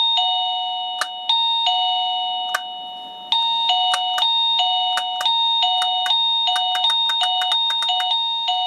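TRAUST wireless doorbell's plug-in chime receiver playing its electronic chime melody. A few slow notes come first, then about three seconds in a quicker run stepping back and forth between a higher and a lower note. The chime sounds when the self-powered button is pressed, showing that the button and receiver are already linked.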